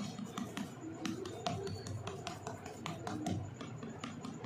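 Silicone spatula patting and scraping a soft, mashed kabab mixture flat in a steel tray, giving irregular clicks and taps against the metal. Faint background music runs underneath.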